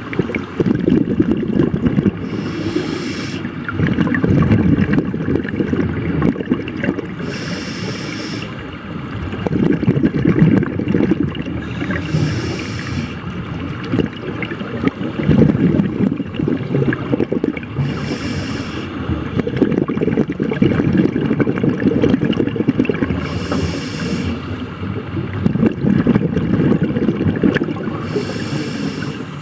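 A scuba diver breathing through a regulator, heard underwater. About every five seconds there is a short hiss of inhalation, six in all, and between them a long rumble of exhaled bubbles.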